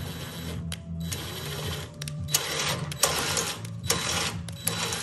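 MIG welder arc crackling in a run of short bursts of about a second each, with brief breaks between, as nuts are welded onto a steel tube frame. A steady low hum runs underneath.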